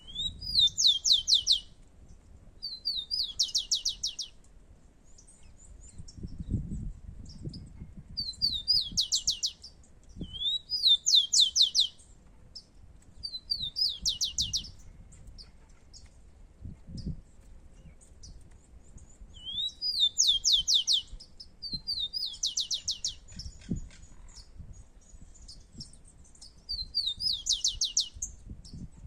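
Rufous-collared sparrows (tico-tico) singing, song after song every few seconds: each song is a short rising whistle followed by a fast, falling trill.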